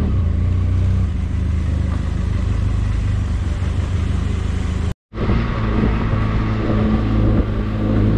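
Benelli TRK 502X's parallel-twin engine running steadily at low road speed. About five seconds in the sound cuts out to silence for a moment and then comes back.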